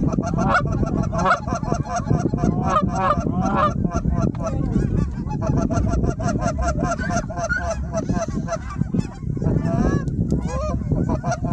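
Geese honking: many short, overlapping honks in quick succession, with a low rumble underneath.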